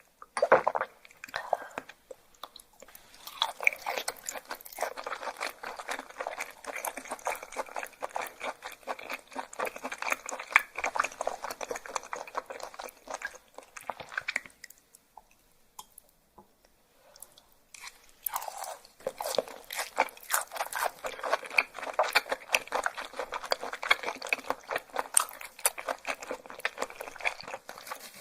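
A person chewing raw yellowtail sashimi with crisp, crunchy crackles. There is a sharp bite about half a second in, then two long spells of steady chewing with a pause of a few seconds between them.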